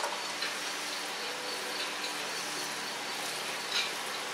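A hand mixing shredded chicken and chili paste in a stainless steel bowl, with a short knock near the end, over a steady high background hiss.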